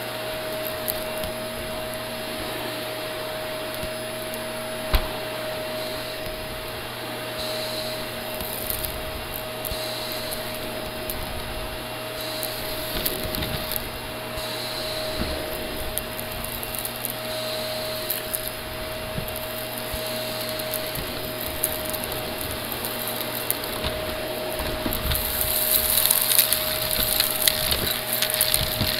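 Shark Navigator upright vacuum running over carpet: a steady motor whine under a rushing airflow, with crackling as grit and debris are sucked up. The crunching grows denser and louder over the last few seconds.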